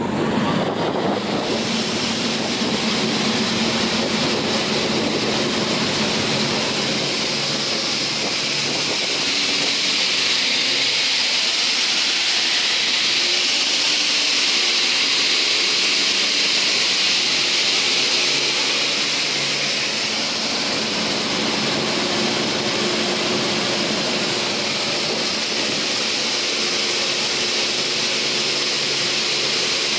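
TOS Svitavy PWR 422 twin-shaft multi-rip saw starting up and running with no workpiece. Its spinning blades give a loud, steady high hiss that builds over the first couple of seconds and then holds.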